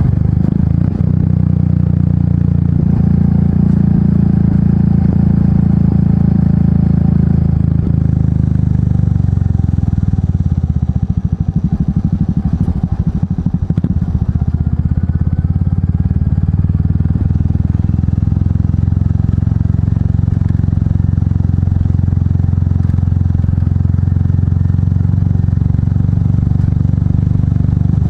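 Royal Enfield Meteor 350's single-cylinder engine through an aftermarket exhaust, running steadily under way. About eight seconds in it eases off and the firing strokes come slow and separate for several seconds, then it pulls steadily again.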